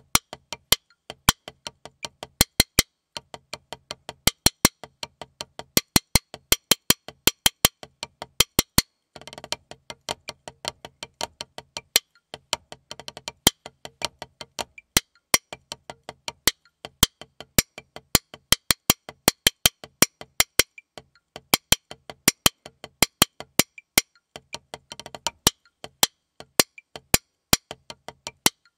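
Wooden drumsticks playing a rudimental snare-drum solo on a rubber Vater practice pad: a fast, even stream of sharp clicking strokes with louder accented hits, broken by a few brief rolls.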